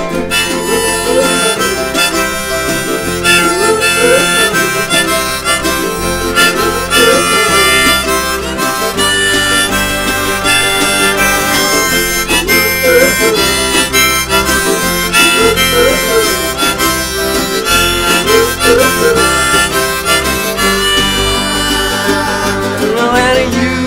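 Harmonica solo with wavering, bent notes over a folk-rock band's live backing of guitars and electric bass, an instrumental break with no singing.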